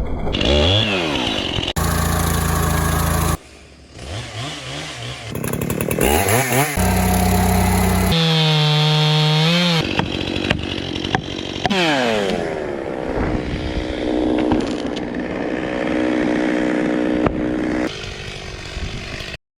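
Gas chainsaws running and revving, their engine pitch rising and falling, in a string of short clips that change abruptly every second or two; the sound cuts off suddenly near the end.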